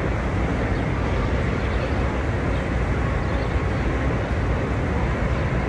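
Steady city street ambience: a low traffic rumble with no distinct events.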